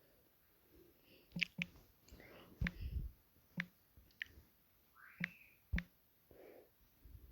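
Faint, scattered clicks and taps close to the microphone, about seven of them in four seconds, with soft breathy rustles between.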